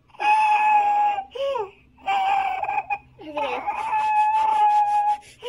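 A baby's whiny cries: four high wails, some held at one steady pitch and others sliding down.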